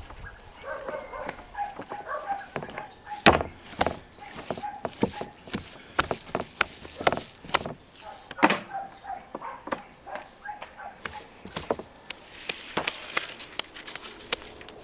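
Minced meat being kneaded and thrown down on a wooden cutting board: a run of wet slaps and knocks at uneven intervals, the loudest about three and a half and eight and a half seconds in. Birds chirp in short repeated notes in the background.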